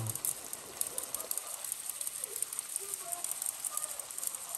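Diced bell peppers and onions sizzling in a wok, a steady crackling hiss.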